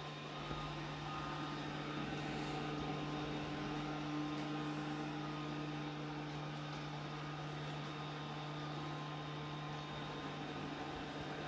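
LG Hom-Bot robot vacuum cleaner running as it drives across a wooden floor: a steady motor hum under an even hiss of suction and brushes.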